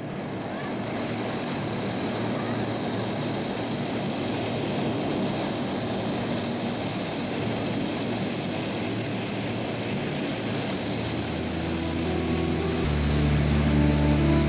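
Lockheed C-130 Hercules turboprop airliner-type transport's four turboprop engines running, a steady high whine over a broad rush of propeller noise. It grows louder over the first couple of seconds and swells again near the end.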